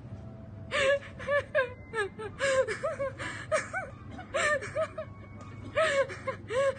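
Gulls calling: runs of short, arching, yelping calls in four clusters, about a second in, around two to three and a half seconds, near five seconds, and near the end.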